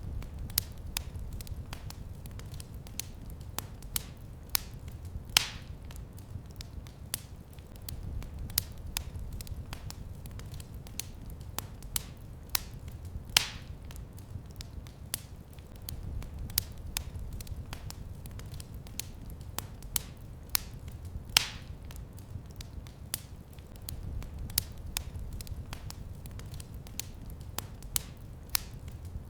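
Wood fire crackling in a fireplace: a low, steady rumble of flame under a constant scatter of small sharp crackles. Louder pops come about every eight seconds.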